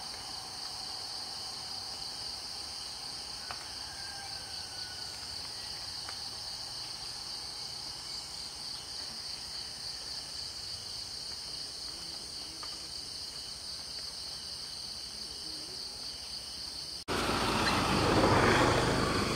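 Steady insect chorus: a shrill, fast-pulsing buzz with a faint click or two. Near the end the sound cuts abruptly to a louder, rougher noise.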